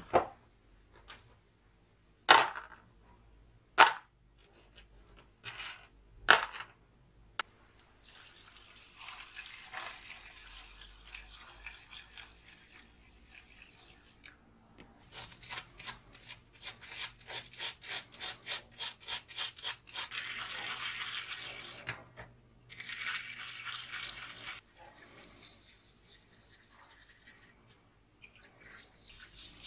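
A few sharp clicks and knocks as metal drill gears and chuck parts are set into a plastic tub. Then cleaning liquid is poured from a plastic jug over the parts, glugging and splashing, followed by soft scrubbing with a small brush in the liquid near the end.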